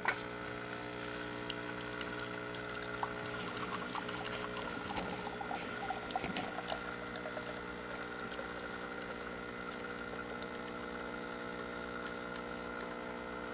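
Saeco Magic Comfort+ super-automatic espresso machine brewing: its pump hums steadily as coffee pours into the cup. The hum starts abruptly.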